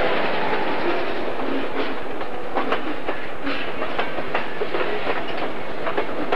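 Boxcars of a Southern Pacific local freight train rolling past, a steady rumble of wheels on rail with sharp clicks and clanks, which come more often from about two seconds in.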